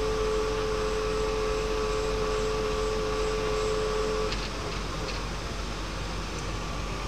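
Crawler piling rig running at a steady idle with a high steady whine that cuts off a little past halfway, then a few light clicks; no hammer blows land.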